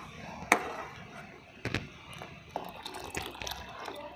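Metal ladle clinking against the side of a pot of boiling milk as it is stirred: a handful of sharp, separate clinks, the clearest about half a second and a second and a half in.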